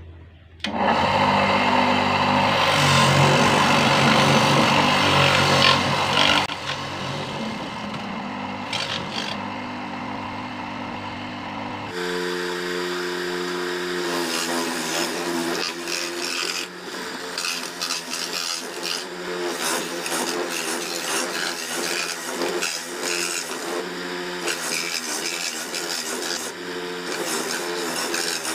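Electric coconut grater switched on under a second in, its motor spinning the spiked grating head; it is loudest for the first few seconds. Later a coconut half is pressed against the spinning head, and the motor's steady hum mixes with the scraping of the flesh being grated.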